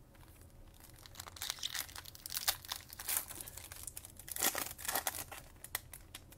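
A foil trading-card pack wrapper being torn open and crinkled by hand: irregular crinkles and rips, loudest in the middle.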